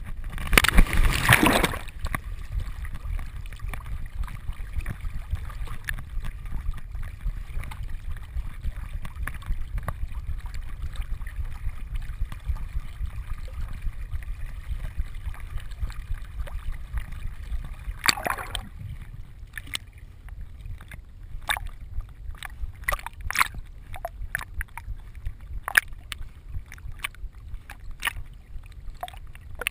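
Retriever splashing into a pond about a second in, then swimming, heard from a camera on its vest: a steady low churning of water as it paddles, another splash about two-thirds through, and a scatter of sharp ticks near the end.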